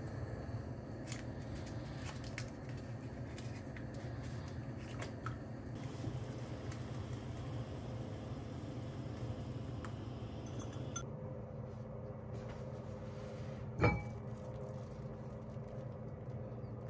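Kitchen handling sounds over a steady low hum: small clicks and taps in the first few seconds, a hiss in the middle that stops about 11 s in, and one sharp knock about 14 s in.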